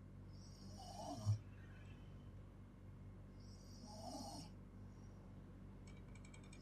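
A girl snoring in her sleep: two slow breaths about three seconds apart, each a hissing rush of air, the first ending in a short low snort. Near the end there is a quick run of faint clicks.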